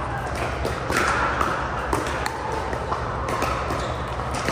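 Pickleball paddles hitting plastic pickleballs: sharp pops at uneven intervals, about two a second, over background chatter and a steady low hum.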